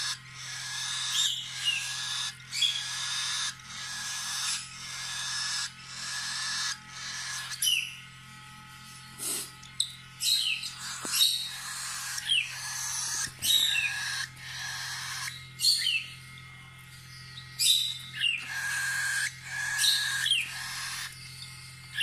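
Cockatiel chick begging to be fed, giving repeated hissing calls, each under a second long, some ending in a short falling chirp. The calls pause briefly about a third of the way in.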